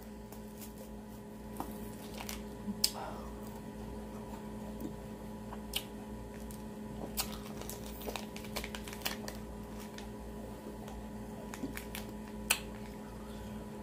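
Eating a freeze pop from its plastic sleeve: scattered wet mouth clicks, slurps and plastic sleeve crackles, with a few sharper clicks standing out, over a steady low hum.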